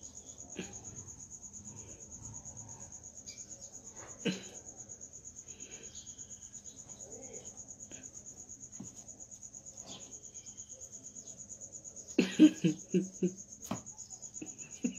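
Steady, high-pitched insect trill with a fast pulse, the continuous chirping of a cricket-like insect. A person's voice breaks in briefly about twelve seconds in.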